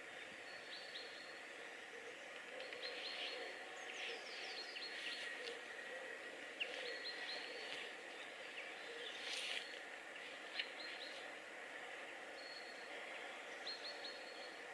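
Small birds chirping in short, high, quick runs of calls, over a faint steady outdoor background.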